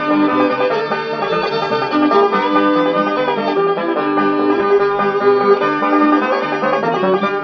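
Old-time string band instrumental break from a 1938 78 rpm record: fiddle, banjo and guitars playing between sung verses.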